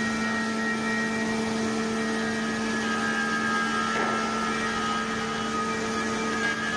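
CNC machining center for transformer insulation parts running: its spindle motors and dust extraction give a steady hum with several high whining tones. The whine changes pitch about three seconds in, with a brief rasp a moment later.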